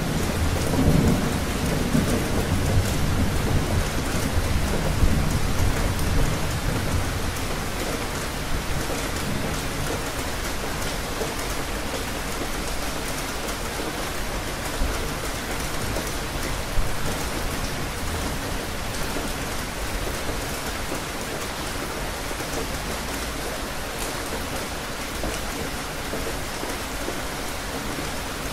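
Steady rain falling, with low thunder rumbling through the first several seconds and fading away. Two brief, louder taps come about halfway through.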